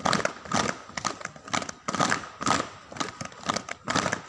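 A group doing jumping jacks in unison: sharp claps and landings in a steady beat, about two a second.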